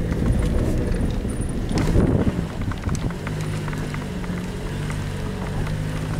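A car driving slowly over a bumpy dirt track, heard from inside the cabin. The tyres and suspension make a rough low rumble with a knock about two seconds in, then about three seconds in the car slows almost to a stop and the engine gives a steady, quieter hum.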